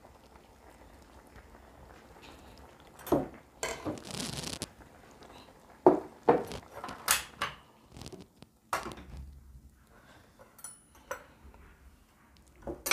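Metal ladle, chopsticks and tableware clinking and knocking against a brass soup pot and ceramic bowls, with a short scrape about four seconds in. The clinks come several at a time through the middle, then a few lighter ones near the end.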